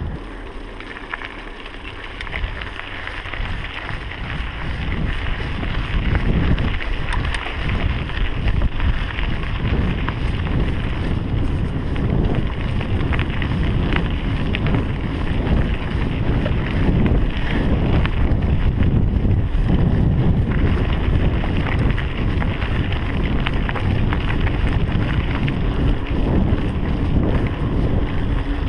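Mountain bike rolling over a rough gravel track: the tyres rumble and the bike rattles with many small knocks, under wind buffeting the camera microphone. It grows louder over the first few seconds as the bike picks up speed.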